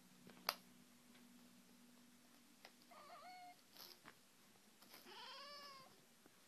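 A cat meowing twice, faintly: a short call about three seconds in, then a longer one about five seconds in that rises and falls in pitch. A single sharp click comes shortly after the start.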